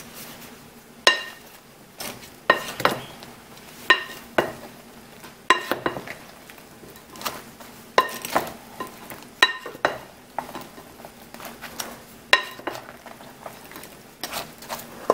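Wooden spoon stirring soaked bread cubes and custard in a ceramic mixing bowl, knocking against the bowl about every second and a half, each knock with a short ring.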